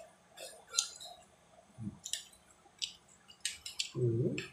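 A metal spoon clicking and scraping against a ceramic plate while scooping food, several separate light clicks. A short voiced sound from the eater near the end.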